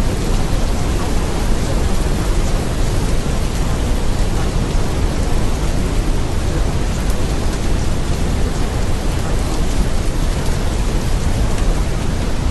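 Steady, unbroken rushing noise like heavy rain, with a strong low rumble underneath: the masking sound bed of a subliminal audio track.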